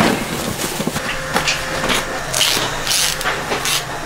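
Steady low hum of packing-line machinery, with several short hissy scrapes from cardboard boxes and packing tape being handled.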